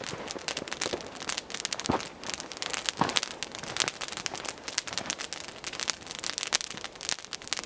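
Dry brushwood crackling and rustling: many small irregular snaps and clicks, with a couple of louder snaps about two and three seconds in.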